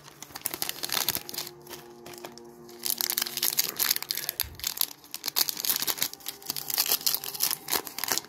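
A foil trading-card pack being torn open and crinkled. The dense crackling of the wrapper starts about three seconds in, as it is peeled back from the stack of cards.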